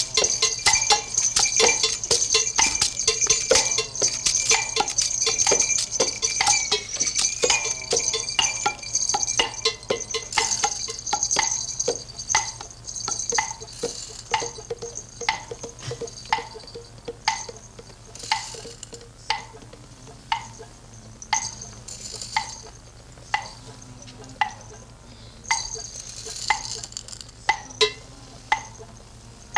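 Hanging metal percussion, a triangle and metal tubes, struck over and over and ringing. The strikes come fast and thick for the first ten seconds or so, then thin out to about one a second as the ringing dies away.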